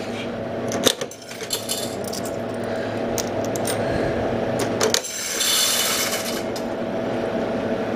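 Quarters being fed into the coin mechanism of a Freshpop popcorn vending machine: several sharp metal clicks and clinks, then a longer rattle about five seconds in.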